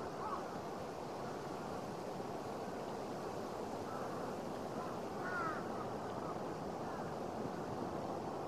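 Outdoor ambience: a steady rushing background noise, with a few faint short calls just after the start and again about five seconds in.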